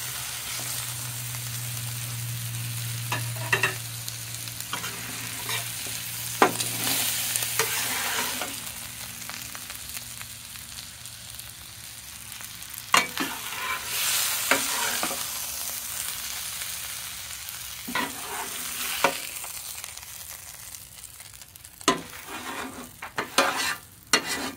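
Jumbo shrimp sizzling on a hot steel flattop griddle, with a metal spatula scraping and clicking against the griddle top every few seconds. The sizzle dies down toward the end as the griddle has just been turned off.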